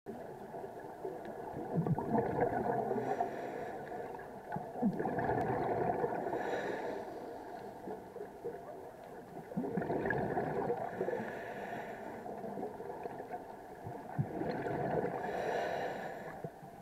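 Scuba diver breathing through a regulator underwater: exhaled bubbles gurgling and the regulator hissing, swelling and fading about every four seconds.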